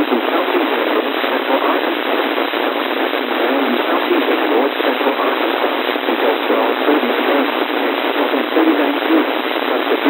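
Steady static hiss from a NOAA Weather Radio receiver, with a faint, unintelligible voice broadcast barely showing through the noise.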